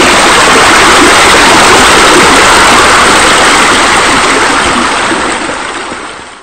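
Loud, steady rush of running water, easing off over the last two seconds and stopping.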